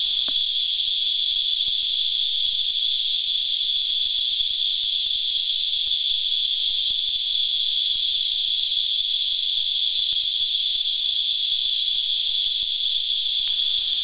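Cicada (known locally as a Christmas beetle) singing: a loud, steady, high-pitched whine.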